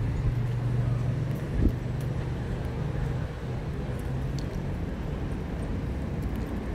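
City street traffic with a motor vehicle engine running close by as a steady low hum, strongest for the first three seconds and then weaker. A single thump about one and a half seconds in is the loudest moment.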